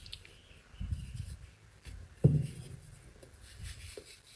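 Dry soap being crumbled and scraped close up, a run of scratchy, crunchy rubbing, with one sharp low thump about halfway through.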